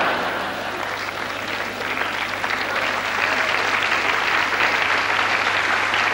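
Theatre audience applauding after a punchline, a dense crowd of clapping that swells from about halfway through.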